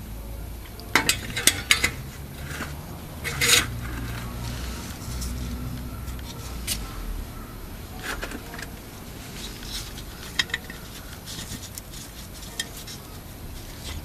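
Scattered metallic clinks and clicks of tools and bolts being handled while the differential cover is refitted, loudest in a cluster about a second in and again a little after three seconds.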